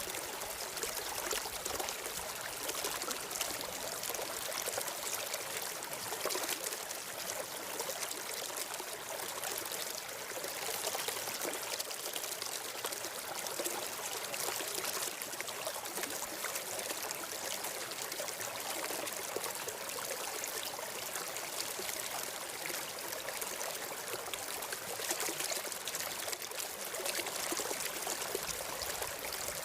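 Steady flowing water of a stream, an even rushing trickle without a break.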